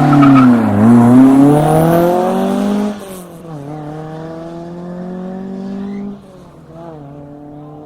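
Rally car engine accelerating hard through the gears, its pitch climbing between quick shifts. It is loudest for the first three seconds, then drops off sharply and carries on fainter, still climbing through more gear changes as the car pulls away.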